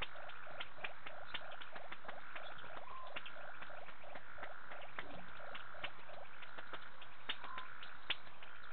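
Night chorus of frogs calling at a waterhole: a continuous run of rapid pulsed calls, about six a second, over a steady higher trill, with many sharp clicks scattered through it.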